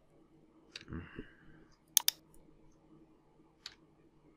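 Sharp clicks of computer keys being pressed: a single click just under a second in, a quick double click about two seconds in, and another single click near the end, over faint room hiss.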